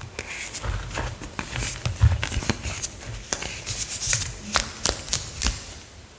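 Reformed chalk being crushed, crunching and crumbling in sharp, irregular crackles and snaps with a few dull thuds, dying away near the end.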